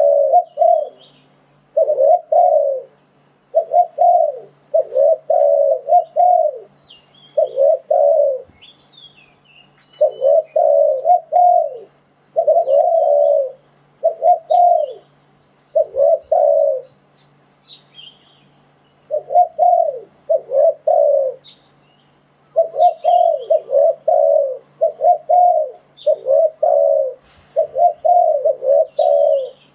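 Spotted dove cooing in repeated phrases of two to four low coos, with short pauses between them: the call played as a lure to bring wild doves to a trap. Faint chirps of small birds sound above it.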